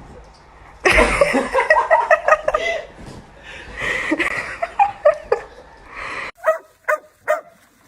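A dog barking and yipping, loud and busy at first; after a cut near the end, short separate barks about two a second.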